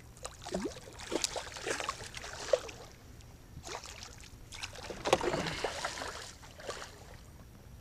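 A hooked striped bass, still full of fight, thrashing and splashing at the surface beside the boat hull in irregular bursts, strongest about a second in and again about five seconds in.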